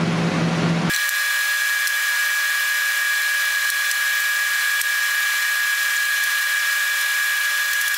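Steady high-pitched whine over hiss that cuts in abruptly about a second in. It is the kitchen's low background hum pitched up, the sound of fast-forwarded footage of meat being cut up.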